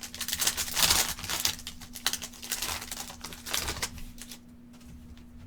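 Trading cards being flipped and slid against each other in the hands, a quick run of soft clicks and swishes that thins out after about four seconds. A faint steady low hum runs underneath.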